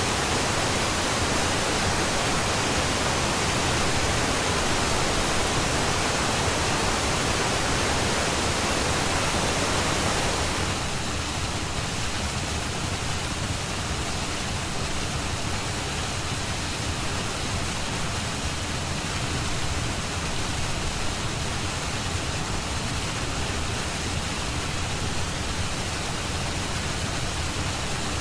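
Steady, even rushing noise with no pitch or rhythm, like a waterfall or pink noise. About ten seconds in it drops slightly in level and loses its highest hiss, then carries on unchanged.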